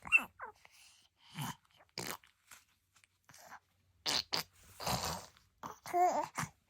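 Baby blowing spit bubbles and raspberries: a string of short, irregular wet sputters and pops, with a brief wavering vocal sound near the end.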